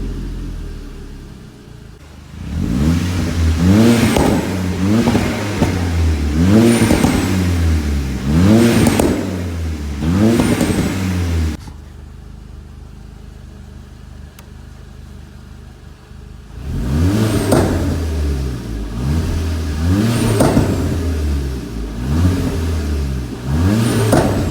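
Seat Leon Cupra's turbocharged 2.0 four-cylinder engine revved up and dropped again over and over, about one rev every second and a half, with pops and crackles from the exhaust as the revs fall on each throttle lift, the sign of tuned overrun fuel cut. About halfway through it settles to a steady idle for around five seconds before the revving and popping start again.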